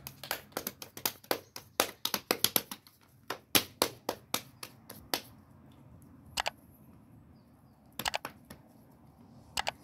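Hands slapping and patting balls of soft bread dough flat between the palms: a quick, irregular run of sharp slaps for about five seconds, then a few scattered pats.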